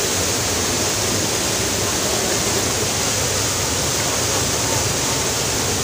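Waterfall crashing into its rocky plunge pool close by: a steady, unbroken rush of falling water.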